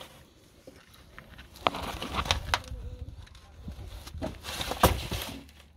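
Scattered clicks and knocks with rustling between them: a tool and gloved hands working at a car's plastic wheel-arch liner and its screws.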